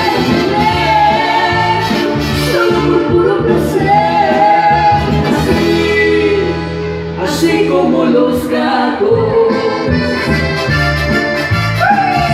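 Live band playing a Latin popular song over a PA: a melody line above a steady bass and rhythm.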